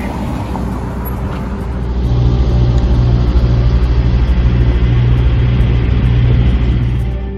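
Street traffic, cars driving past, heard through a camera fixed on a moving bicycle, with a heavy low rumble that grows louder about two seconds in.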